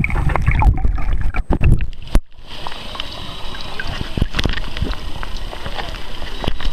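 Water sloshing and rumbling around a camera moved about in a pool, with many sharp clicks. It breaks off suddenly about two seconds in, and a steadier hiss with scattered clicks follows.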